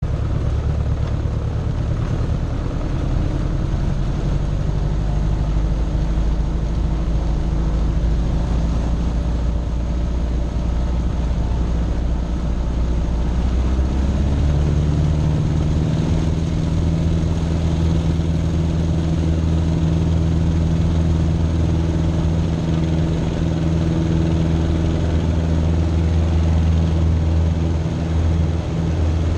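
Citabria light plane's Lycoming four-cylinder engine and propeller running steadily at low power on the grass, then stepping up in pitch about halfway through as the throttle is opened for the takeoff roll.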